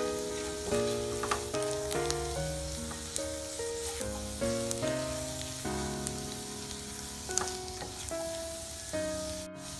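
Chicken pieces sizzling as they fry in a nonstick wok while a silicone spatula stirs and turns them, with light scrapes and taps. Background music with notes changing about twice a second plays over it.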